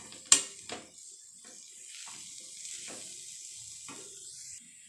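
Slotted steel spatula stirring a dry vegetable and potato stuffing in a steel kadai. A sharp metal clank comes about a third of a second in, followed by repeated scraping strokes against the pan.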